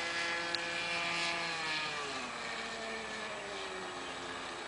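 Engine of a Sig Kadet LT-40 radio-controlled trainer droning in flight overhead. About two seconds in, its pitch falls and settles lower as the throttle is pulled back to slow the plane for a stall test.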